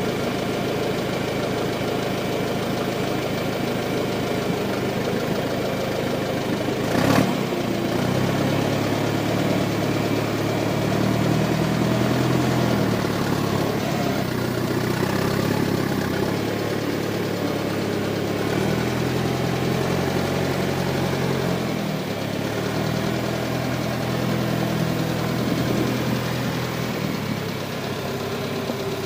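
John Deere 410 loader backhoe's engine running. There is a sharp clank about seven seconds in, and after that the engine's pitch rises and falls repeatedly.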